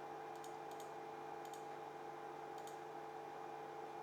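A few faint, sharp key clicks, as the CNC control is jogged from the computer keyboard, over a steady electrical hum from the idle machine.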